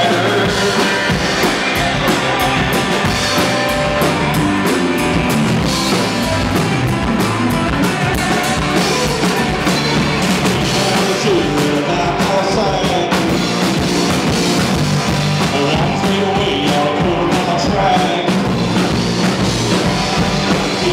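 Live country-rock band playing loud and steady: electric guitars, bass and drum kit, amplified through PA speakers.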